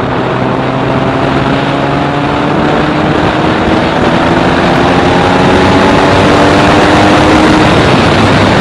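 Vauxhall Cavalier GSi 4x4's 3.0 V6 engine pulling on the road, its note rising slowly and steadily as the revs climb, over heavy road and wind noise.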